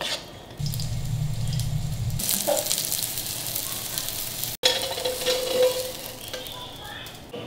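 Batter for a Korean seafood pancake sizzling as it fries in hot oil in a pan, the hiss starting about two seconds in and broken off sharply near the middle.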